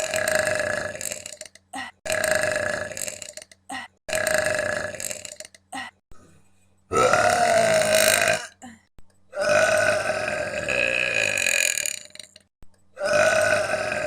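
A young woman belching on command: about six long belches one after another with short pauses between, each lasting a second or more, the longest about two and a half seconds.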